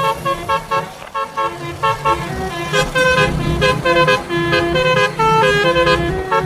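Multi-tone telolet (basuri) bus horn playing a quick melody of short honked notes, jumping in pitch from note to note, over a low rumble.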